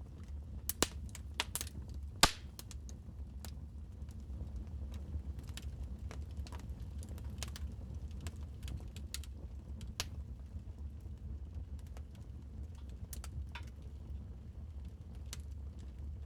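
Fireplace fire crackling: irregular sharp pops and snaps over a steady low rumble, with a few louder pops in the first couple of seconds.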